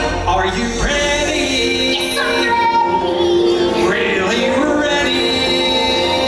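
A song from a stage musical: a woman singing a melody over instrumental accompaniment.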